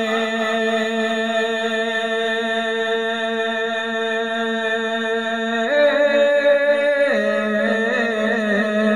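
Wordless vocal backing for a naat, humming in long held notes with no words. The pitch steps up about six seconds in and drops back a second or so later.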